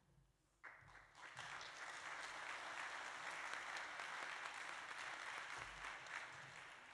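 Audience applauding, fairly faint, starting about half a second in, holding steady, then dying away near the end.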